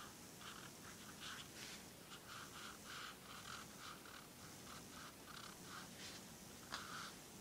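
Pen scratching on cardstock paper, writing a short handwritten message in quick, uneven strokes, with one sharper tick near the end.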